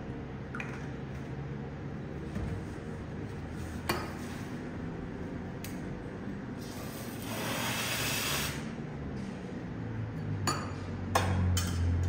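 Rocket espresso machine's steam wand purged into a towel, a hiss of about two seconds halfway through. A light clink comes before it, and a few sharp clinks of a steel milk pitcher and cup follow near the end.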